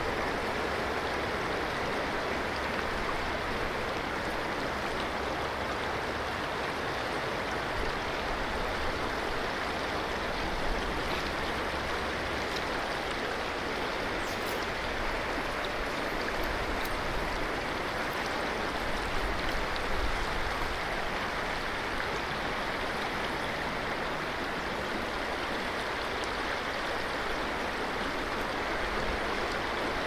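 River water flowing and rushing steadily, an even hiss of moving water with a low rumble underneath that swells and fades.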